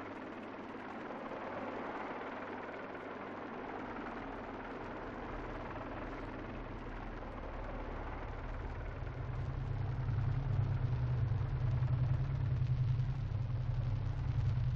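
Helicopter engine and rotor noise: a low drone over a steady hiss, coming in about five seconds in and growing louder from about nine seconds on.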